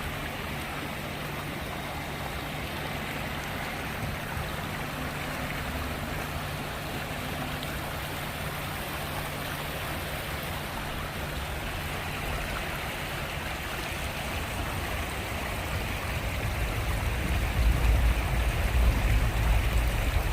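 Steady rush of flowing water, with a low hum underneath; a deeper rumble builds and grows louder over the last few seconds.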